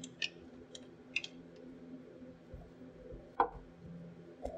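Scattered small metallic clicks and ticks of a washer and nylon-insert lock nut being handled and started by hand on an air spring's air-inlet stud, with one louder click about three and a half seconds in. A steady low hum runs underneath.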